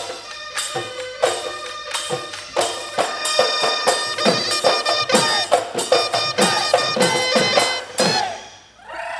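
Assamese Bihu folk music driven by a dhol: steady drum strokes that turn quicker and denser about three seconds in, with high ringing metallic tones over them, then stop abruptly about eight seconds in.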